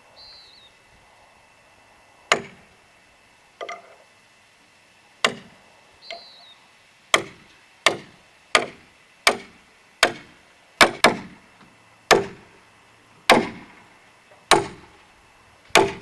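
Heavy tool blows struck into log timber, about fourteen sharp knocks, a few spaced out at first and then coming faster, roughly every three-quarters of a second.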